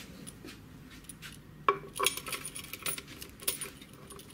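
Light metallic clinks and clicks, several of them, the sharpest a little under two seconds in: metal cable plugs and loose metal wing screws knocking together and against the wooden bench as they are handled.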